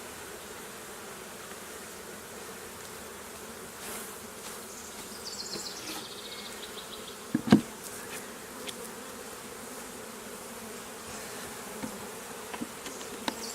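A honeybee colony buzzing steadily around an opened hive as bees are shaken from frames into a new box. There is one sharp knock about halfway through, the loudest sound, and a few small clicks.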